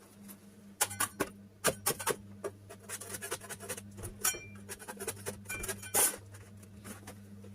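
Irregular clicks, clinks and short scrapes of hands handling things on the floor, the loudest about six seconds in, over a steady low electrical hum.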